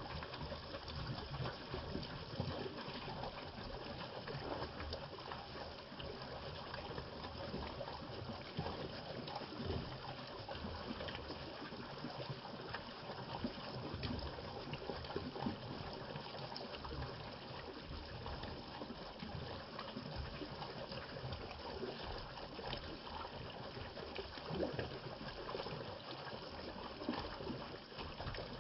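Water running steadily, with small trickling splashes, as of a stream.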